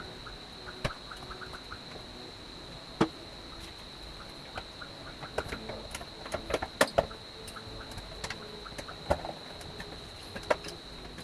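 Scattered clicks, taps and knocks of plastic parts being handled and fitted while reassembling a split-type air conditioner's indoor unit, the loudest a quick cluster about two-thirds of the way through. A steady high-pitched whine runs underneath.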